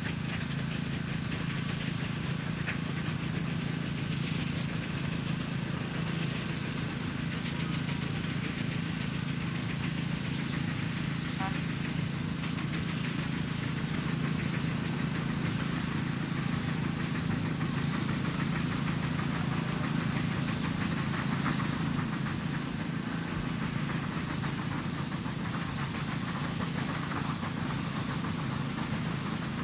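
Steam traction engine working, with a steady hiss of steam over the engine's running. A thin high steady tone comes in about twelve seconds in and holds.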